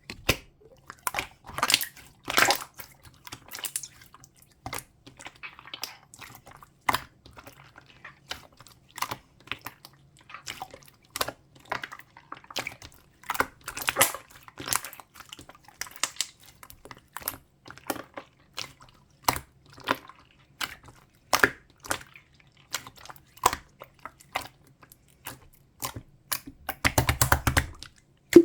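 Clear slime being squished and pressed by hand, giving irregular wet clicks and pops, with a quick run of crackling near the end.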